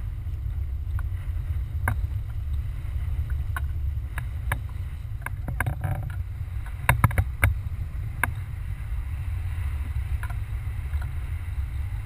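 Steady low rumble of a sport-fishing boat under way, with scattered sharp clicks and knocks; the loudest cluster of knocks comes about seven seconds in.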